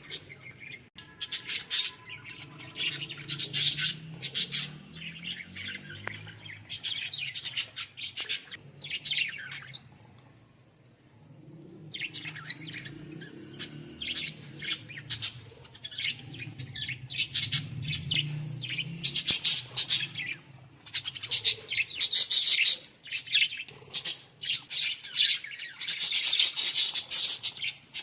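A group of pet budgerigars (Australian parrots) chirping and chattering in quick, overlapping bursts. There is a short lull about a third of the way in, and the chatter grows louder and busier in the second half.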